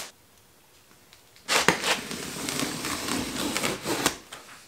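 A plastic-wrapped cardboard box being handled: rubbing, scraping and crinkling of the wrap with small knocks, starting about a second and a half in.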